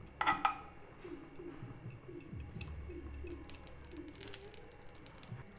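A metal spoon clinks against a non-stick kadai about a quarter second in as a spoonful of ghee is dropped in, followed by faint scattered ticks and crackles of the ghee melting in the hot pan.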